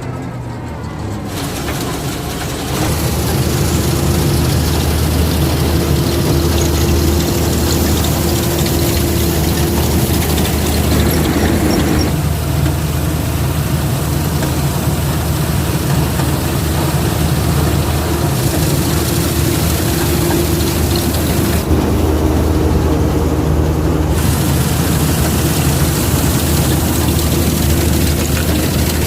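Combine harvester's diesel engine running steadily at a constant pitch while the machine works a rice field. It gets louder about three seconds in.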